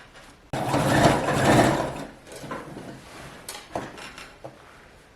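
Sewing machine running in a short burst of stitching, starting suddenly about half a second in and easing off after about a second and a half, followed by a few faint clicks.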